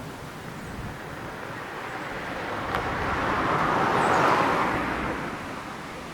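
A car passing by on a road: tyre and engine noise builds, peaks about four seconds in, then fades away.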